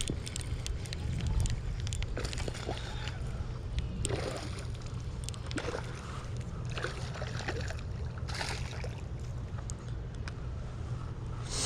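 Water sloshing and splashing in short bursts every second or two while a bass is fought at the boat, with small clicks and a steady low rumble underneath.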